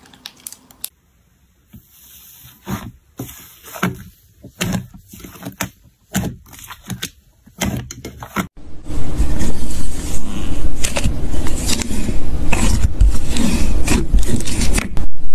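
Slime being handled: scattered sticky pops and clicks at first, then about eight seconds in a much louder, continuous squishing and crackling as it is squeezed.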